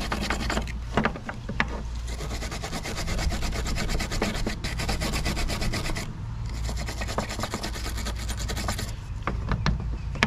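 Small hand wire brush scrubbing rapidly back and forth on a grimy metal brake cable fitting, scraping off dirt and rust. There are short breaks in the strokes about six and nine seconds in.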